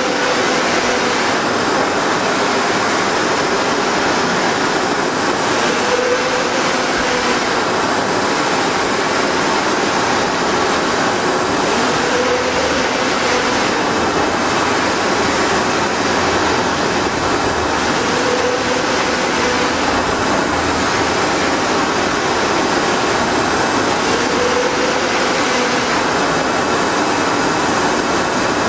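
Large flatbed UV printer running: steady machine noise, with a faint whine that rises and falls about every six seconds as the print-head carriage sweeps across the bed.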